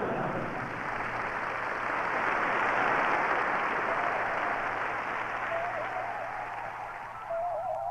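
Audience applause swelling and then dying away. A wavering tone fades in near the end.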